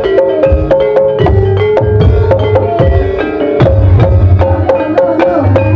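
Ebeg gamelan accompaniment: quick struck mallet-instrument notes in a fast repeating pattern over drum strokes whose pitch bends, with deep low drum beats recurring about every second.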